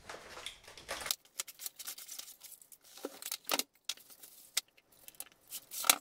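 Unboxing a portable fridge: cardboard and packing tape tearing and rustling, then scattered knocks and clicks as the box and fridge are handled.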